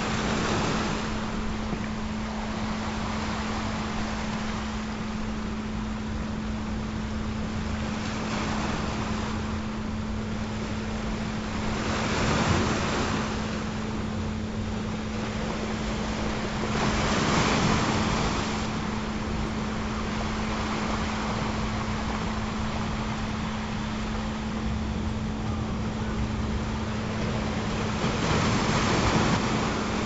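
Recorded ocean surf washing in and receding in slow swells, loudest about twelve seconds in, around seventeen seconds and near the end. A steady low tone is held underneath throughout.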